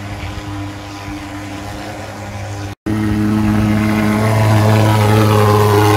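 ATV-mounted insecticide fogging machine running with a steady, even drone as it blows out fog. The sound cuts out for an instant a little before halfway and comes back louder.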